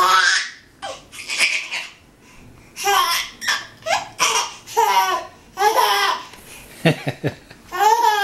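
Baby, nearly five months old, laughing in a run of short bursts, one after another.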